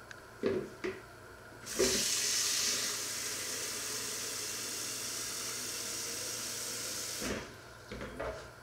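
Kitchen tap running into a plastic measuring jug for about five and a half seconds, a steady rushing that starts and stops abruptly. The jug knocks a couple of times before the water starts and again after it stops.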